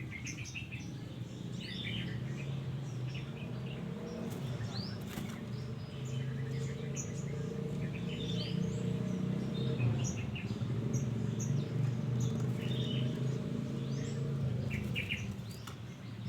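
Wild birds chirping: many short, high calls scattered throughout, over a steady low drone.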